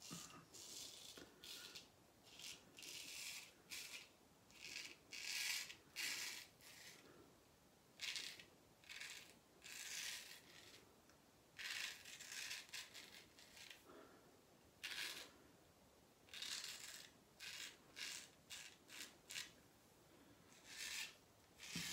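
Straight razor scraping through lathered stubble in a series of short strokes, each a brief faint rasp, roughly one a second with small pauses between.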